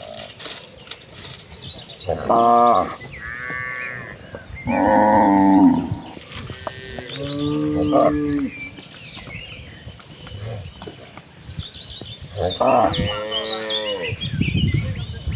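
Cattle in a herd mooing: about five long moos from several animals, one after another and some overlapping, at differing pitches.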